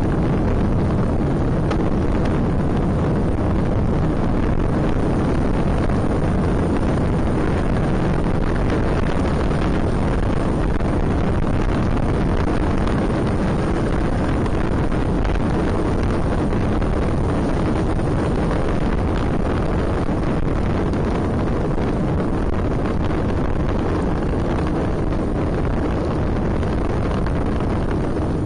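Steady wind rumble on the microphone of a camera mounted on a moving road bike, from riding along at speed in a group.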